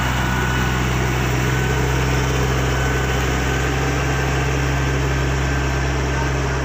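Riding rice transplanter's engine running at a steady, even pitch as the machine drives along.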